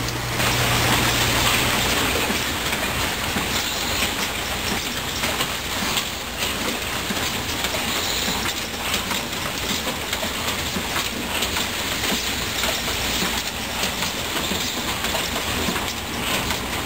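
Pneumatic automated assembly machines for small dispenser pumps running: a dense, continuous clatter of many small clicks and knocks, with an air hiss that is loudest in the first couple of seconds.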